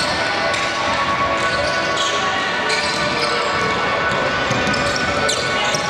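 Basketball game in play on an indoor court: the ball bouncing, with short high squeaks against a steady background din.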